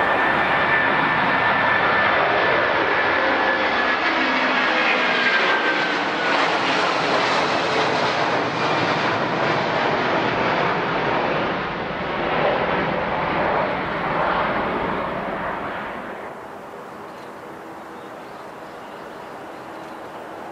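Jet airliner passing close by, its engines loud, with a high whine slowly falling in pitch over the first few seconds. The engine noise dies away at about sixteen seconds, leaving a quieter background.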